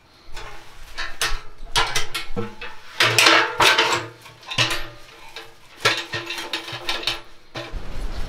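Camp Chef Alpine steel wood stove being assembled: a run of metal clanks, knocks and scrapes as its legs are fitted and the stove and stovepipe sections are handled, loudest about three seconds in.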